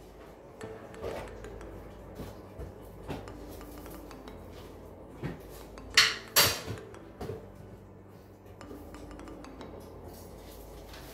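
Spoon, plate and spice containers clinking and knocking on a kitchen counter while spices are handled, with two sharp clinks about six seconds in. A steady low hum runs underneath.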